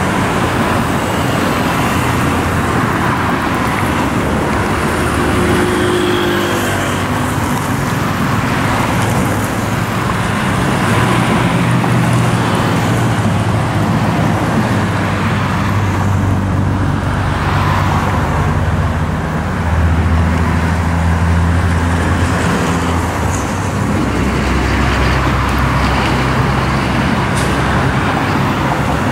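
Busy road traffic: a steady stream of cars, vans and motorcycles passing at speed, with tyre noise and engines. A low engine drone from heavier passing vehicles swells through the middle.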